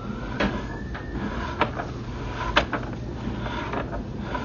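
Sewer inspection camera on its push rod being fed along a relined pipe: a few sharp clicks and knocks, the loudest about two and a half seconds in, over a steady low hum, with a faint rising whine in the first second.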